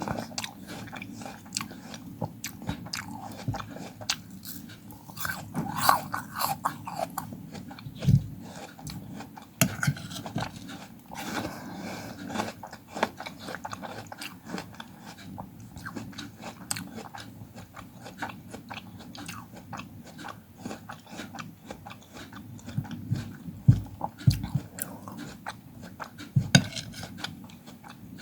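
Close-miked eating of fruit: bites and chewing, with many small irregular clicks and a few louder bites.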